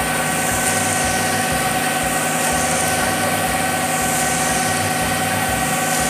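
Concrete mixer truck's diesel engine running steadily, with a low, regular pulse underneath.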